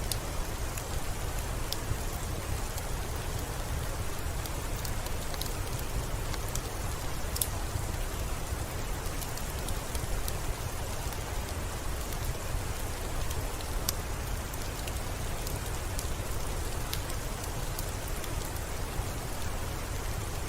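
Soft steady rain mixed with a crackling wood fire: an even hiss over a low rumble, with scattered sharp pops.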